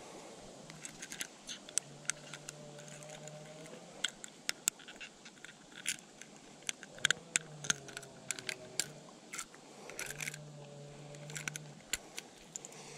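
Irregular sharp metallic clicks and scrapes of a hook-removing tool working a spinning lure's hook out of a caught chub's mouth. An insect buzzes steadily in three stretches of a second or two.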